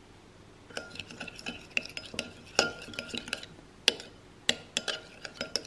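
Metal teaspoon stirring a thick mix of shampoo, body wash and salt in a small glass bowl, scraping and clinking against the glass with short ringing chimes. The stirring starts about a second in and goes in irregular strokes.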